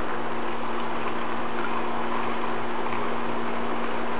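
Steady, even hiss with a low hum underneath, unchanging and with no distinct events.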